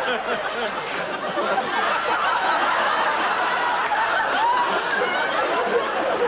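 Studio audience laughing, many voices overlapping without a break.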